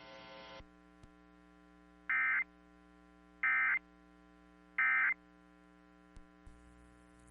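Emergency Alert System end-of-message data bursts: three short, identical bursts of high digital screech, about a second and a quarter apart, over a faint steady hum. They mark the end of the alert broadcast.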